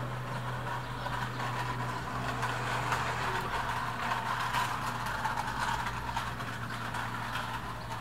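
A steady low mechanical hum like a motor running, with background noise over it.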